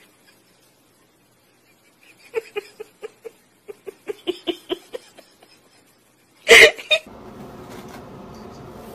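A quick run of short, high-pitched vocal bursts, about five a second, like giggling or hiccuping. About six and a half seconds in there is a sudden loud noise, then a steady low hiss.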